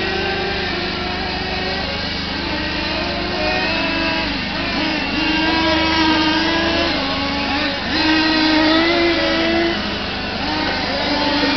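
Several radio-controlled model race cars' small engines buzzing at once, their high pitch rising and falling as they accelerate and brake around the circuit.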